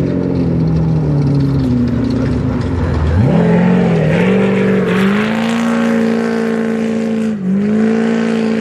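Off-road race vehicle's engine running loud: its pitch sags over the first few seconds, then climbs sharply about three seconds in as it accelerates, and holds high, with a brief drop in pitch and level near the end.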